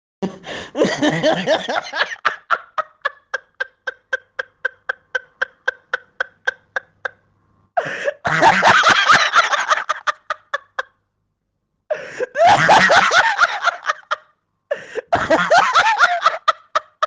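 A string of laughing sound effects. A burst of laughter opens into a long, even run of short staccato "ha-ha-ha" pulses, about four or five a second. After a short gap come three more separate bursts of hearty laughter.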